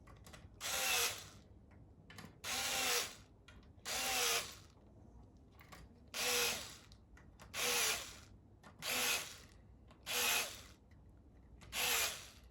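Power drill run in short bursts, about eight in all, each roughly a second long with its pitch dropping during the run, deburring the drilled rivet holes in small aluminium strips.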